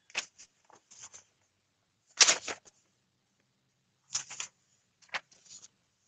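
Paper rustling and handling: sheets being shuffled and a page slid into place, in several short spells of crackling and scraping, the loudest about two seconds in.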